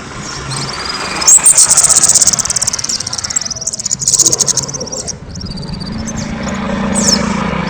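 Kemade songbird singing loudly: a fast, buzzing high-pitched trill about a second in, another near four seconds, then short sweeping whistled notes near the end.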